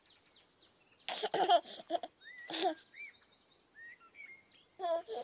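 A baby giggling and babbling in three short bursts, about a second in, around two and a half seconds and near the end, over light birdsong chirps.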